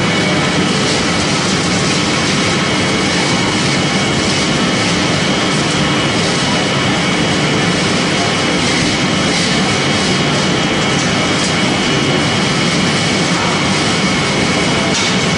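Pellet making machine for corn stalk and sawdust running steadily under load: a loud, even mechanical noise with a faint high whine held throughout.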